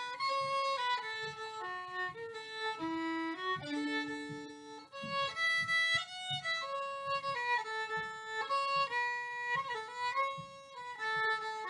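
Fiddle playing a tune, a single melody line of short notes that step up and down.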